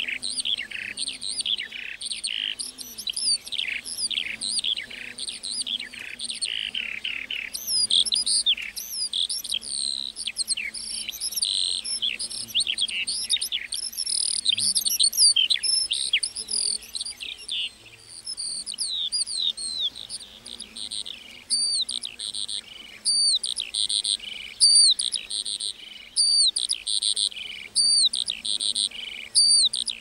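Lark singing a long, unbroken song of rapid chirps, whistles and trills, with a short lull about halfway through.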